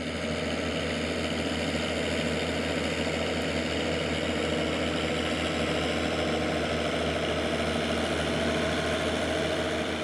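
Zetor tractor's diesel engine running steadily at idle, an even, unchanging low rumble.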